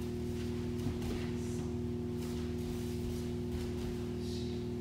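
Steady low hum with faint shuffles and soft thuds of bare feet on tatami mats and rustling of judo gi during repeated throw-entry drills (uchikomi).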